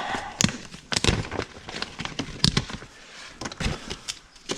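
Irregular clicks and knocks of parts and tools being handled, with no steady sound between them.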